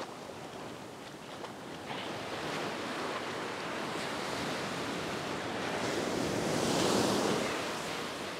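Ocean surf washing up a beach: a wave's rush builds, is loudest about seven seconds in, then eases.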